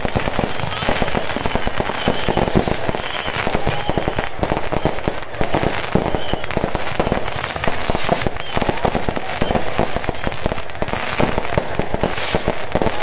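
Fireworks going off in a fast, continuous crackle of many small bangs, with a few louder bursts about eight seconds in and near the end.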